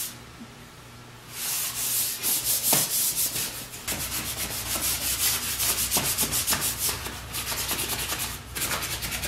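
Hand sanding a wooden gate frame with sandpaper: quick, rhythmic back-and-forth scraping strokes, which stop for about a second near the start and then resume.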